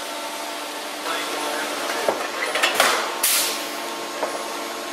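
Metal clicks, clinks and a couple of short scrapes from aluminium wing parts being handled and worked with hand tools, clustered in the middle, over a steady workshop hum.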